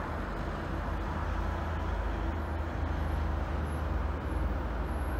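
A slow-moving locomotive consist of two E464 electric locomotives with a D245 diesel shunter between them approaching: a steady low rumble and hum, with no horn or brake noise.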